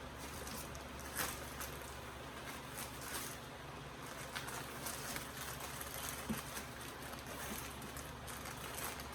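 Faint rustling, scraping and light clicks of small items being handled and sorted, over a steady low background hum.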